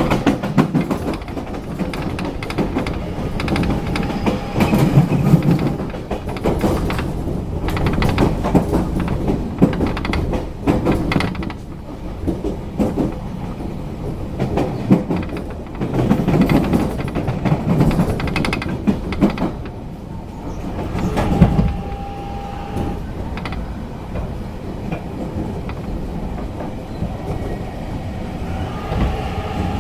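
Running sound heard inside an 813-series electric train car as it rolls toward its terminus: a continuous rumble from the car body and bogies, with repeated sharp clicks and knocks from rail joints and points. A short steady tone sounds about two-thirds of the way through, and another begins near the end.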